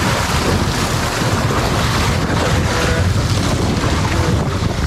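Steady wind noise on the microphone over the wash of sea surf.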